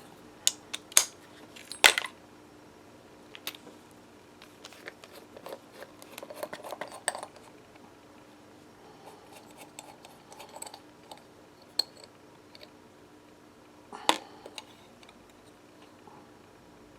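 Small metal carburetor parts and tools clicking and clinking on a workbench as an outboard carburetor is taken apart by hand. The clicks are scattered, with a sharper one about two seconds in and another about fourteen seconds in.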